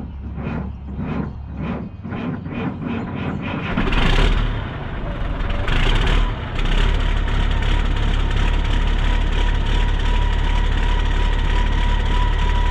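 Freightliner truck's diesel engine cranking over on a cold morning, with rhythmic starter pulses that quicken before it catches about four seconds in. It then settles to a steady run, with a short hiss of air near six seconds and a thin steady high tone over the engine.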